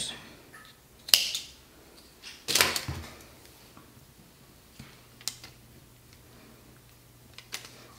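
Small scissors snipping cotton twine with a sharp click about a second in, then a knock as they are set down on a wooden table, followed by a few faint clicks of the twine being handled.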